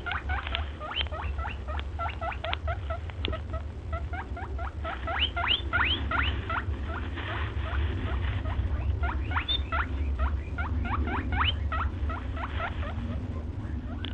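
Small animals giving rapid, high-pitched rising squeaks, several a second, over a low rumble.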